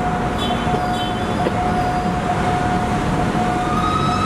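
A steam-locomotive-hauled train running through the station, with a steady rumble and a thin steady tone throughout; a new pitched tone with overtones starts near the end.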